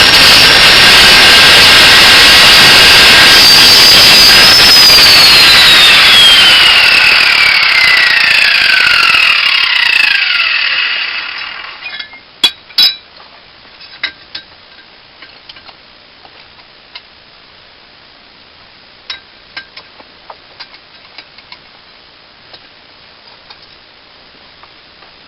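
Angle grinder running loud at full speed, then switched off about four and a half seconds in, its whine falling steadily in pitch as the disc spins down over about six seconds. Afterwards, a couple of sharp clicks and scattered light knocks.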